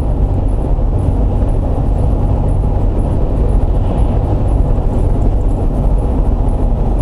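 Steady rumble of road and engine noise inside the cabin of a Mitsubishi Pajero Sport driving at highway speed.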